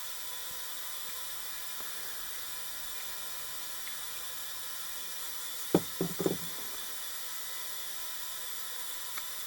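Steady background hiss with a short cluster of three or four sharp knocks about six seconds in, as metal diesel injector parts are handled on the bench.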